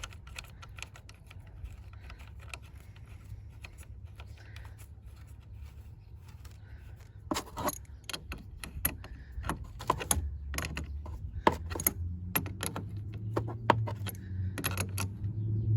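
Metal clinks and clicks of a hand tool working on a car battery's negative terminal clamp as it is fitted onto the post and tightened. The sounds are sparse at first and come thick and fast from about seven seconds in.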